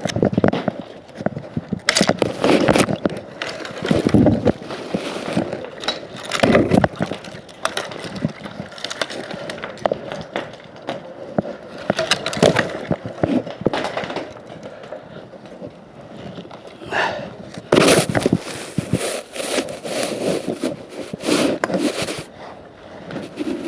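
Irregular scraping and rubbing with many short knocks and crackles, coming in uneven bursts; no chainsaw is running.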